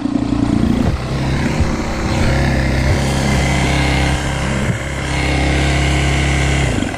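Kawasaki KX250F's single-cylinder four-stroke engine running at a steady speed with the bike down in the dirt after a crash, cutting off suddenly near the end.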